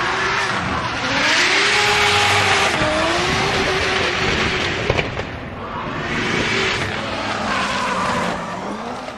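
A high-powered drift car's engine revving up and down in pitch through a drift, with loud tyre screeching swelling and fading; a single sharp crack about five seconds in.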